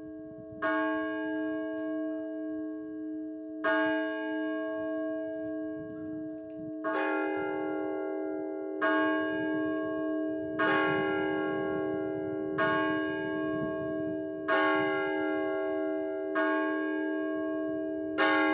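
Orthodox church bells struck in single strokes, each left to ring out, calling to the evening service. The strokes come about three seconds apart at first, then about every two seconds from about seven seconds in, when more bell tones join.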